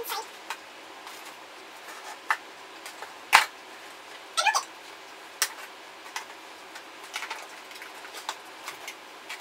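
Packaging being handled: scattered small clicks and crinkles of plastic wrap and a cardboard box, with one loud snap a few seconds in and a short squeak about a second after it.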